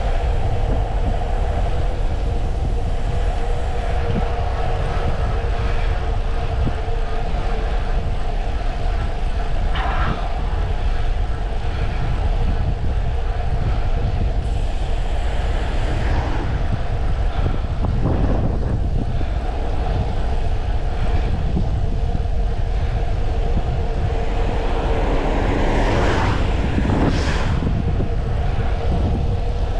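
Wind rushing over the microphone, with road noise, as a Brompton folding bike speeds downhill. A steady hum runs underneath, and a few short louder rushes come through, the biggest near the end.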